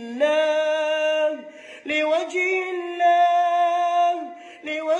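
A reciter chanting the Quran in melodic tajweed, drawing out the vowels in long held notes. There are two long notes with a short breath between them, the second stepping up in pitch about three seconds in.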